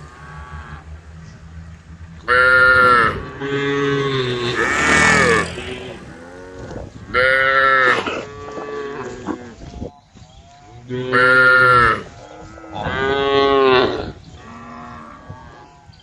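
Cows mooing: a run of about six loud, drawn-out calls, each about a second long, with a fainter one near the end.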